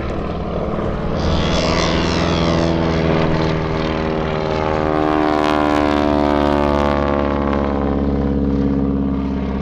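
Boeing Stearman biplane's radial engine and propeller droning in a slow, low fly-past, growing louder towards the middle, then falling gradually in pitch as it goes by.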